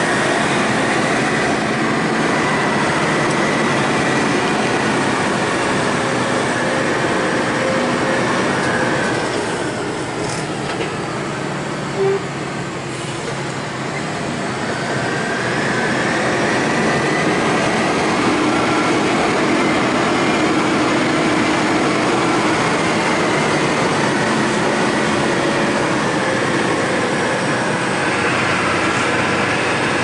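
Truck cab noise while driving: the diesel engine running with the cab rattling. The engine note falls and eases off about ten seconds in, with a single knock, then climbs again as it pulls on.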